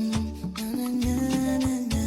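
Afrobeat-style music with a steady beat, a bass line and a long held note, without vocals.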